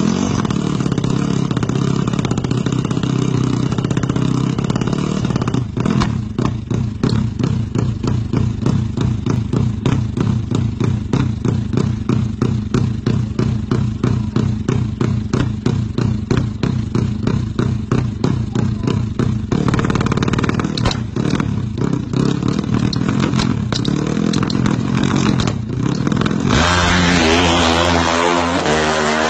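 Drag-race motorcycle engine with a deep note likened to a Fuso truck: it runs steadily at first, then in a choppy pulsing rhythm of about two to three beats a second, and near the end rises in pitch as the bike launches down the strip.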